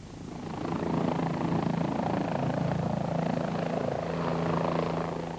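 Bell 407 helicopter flying overhead: a steady rotor and engine hum that swells in over the first second, holds, and fades near the end.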